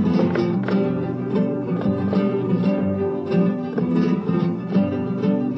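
Flamenco guitar playing a rondeña: a steady flow of plucked notes with frequent sharp attacks and ringing chords.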